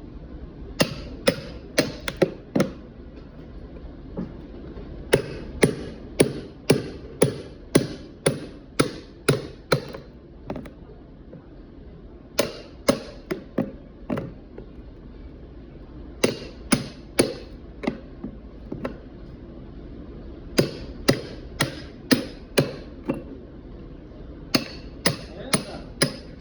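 Hammer blows in six runs of several strikes each, about two a second, with short pauses between runs, as a lead-acid battery is worked on.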